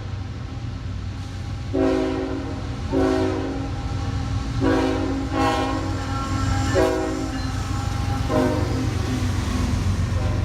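Locomotive air horn blowing a series of blasts: a long one about two seconds in, a short one, a longer one held about two seconds, then two shorter blasts near the end. A steady low rumble from the passing train runs underneath.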